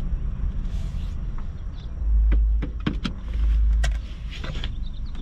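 Car engine running low while the car is parked, with several sharp clicks in the middle. Two louder swells of low rumble come about two and three and a half seconds in.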